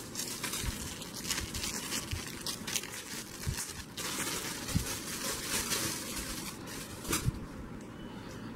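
Clear plastic bag crinkling and rustling as it is handled and pulled off an internal DVD drive, with a few soft knocks; the crinkling dies down near the end.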